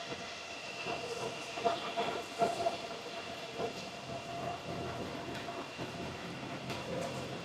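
Steady whine of ASIC Bitcoin miners' cooling fans, with a few light knocks and clicks about one and a half and two and a half seconds in.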